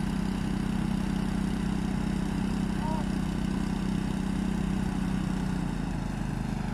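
An engine idling steadily, with an even low hum.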